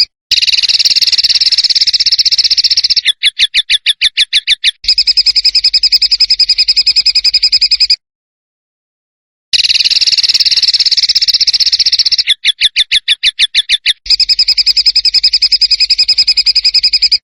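A bird's rapid, buzzing trilled call, broken by a slower run of sharp pulses at about six a second. The recording is looped: the same phrase plays twice, with a dead-silent gap between, as in a masteran track for training songbirds.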